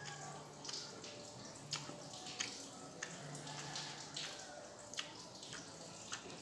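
Close-miked eating sounds: wet mouth smacks and irregular clicks of someone chewing noodles and rice.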